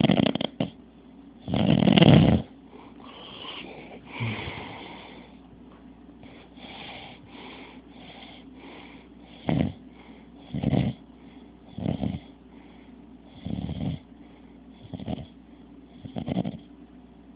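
A man snoring in his sleep. There are two long, loud snores near the start, then after a quieter stretch, shorter snores come about every second and a half.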